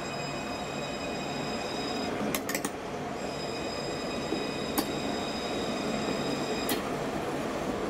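A Luas light-rail tram passing on ballasted track. A steady high whine of several tones runs over the rolling noise and breaks off for about a second about two seconds in. A few sharp clicks come at uneven intervals.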